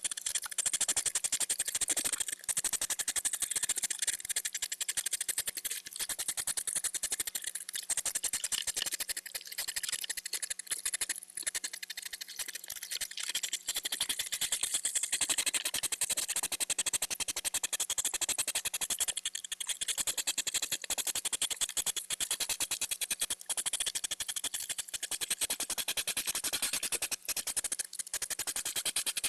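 Two hedgehogs huffing in courtship: a continuous, rapid run of short puffs, a sound mostly made by the female during the mating game.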